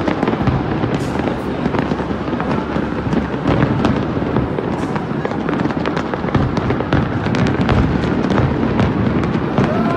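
A large fireworks display going off in a continuous barrage: a steady low rumble of booms with many sharp cracks scattered through it.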